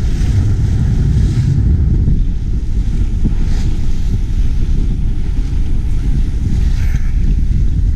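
Wind buffeting the camera microphone in a heavy low rumble, over the rushing hiss of water along the hull of a sailing yacht under way; the hiss swells briefly a few times.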